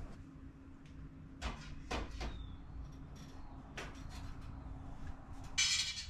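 Light knocks and clicks of kitchen items being handled, a few separate strokes over a low steady hum, then a short hiss near the end.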